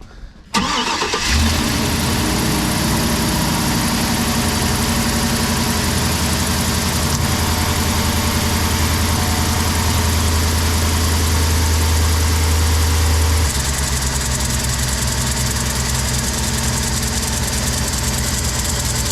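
Van's LS V8 engine starting about half a second in and idling steadily, the note shifting lower at about two-thirds through. Beneath it is the noise of the failing AC compressor pulley bearing, which is not as loud as it has been.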